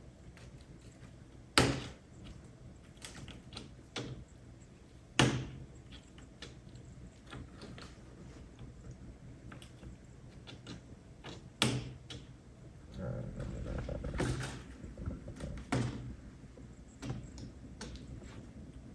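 Scattered sharp knocks and taps in a small room, four of them loud, with a few seconds of rustling a little past the middle.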